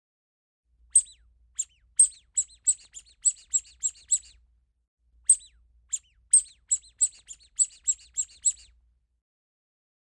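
Northern cardinal singing: two phrases of quick, sharp, high notes that each fall steeply in pitch, about three notes a second, with a pause of about a second between the phrases.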